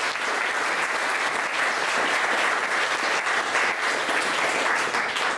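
Audience clapping: steady applause from a roomful of people, dying away near the end.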